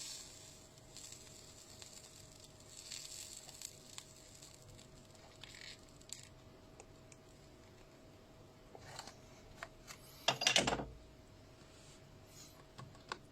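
Faint scraping and handling noises of small hand work on a lithium battery pack's sense-wire connection, with a louder scrape about ten seconds in, over a faint steady hum.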